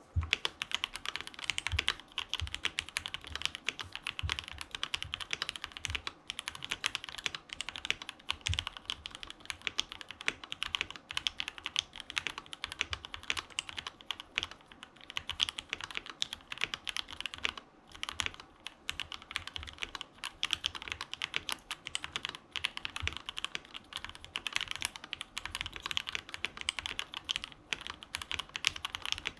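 Steady, fast typing on a KBD67 Lite mechanical keyboard with lubed Gateron KS3 Yellow linear switches, a polycarbonate plate with silicone dampening, and ABS keycaps. The keystrokes make a dense run of clicks, with a few deeper thuds scattered through.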